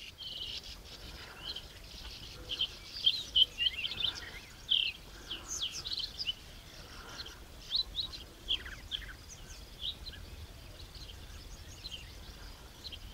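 Many small birds chirping and calling, with short high chirps and quick downward-sweeping notes overlapping throughout, over a faint low outdoor rumble.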